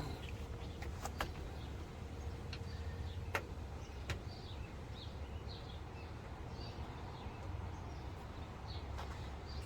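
Scattered light clicks and taps from handling a used computer case, over a low steady hum, with faint short high chirps in the middle.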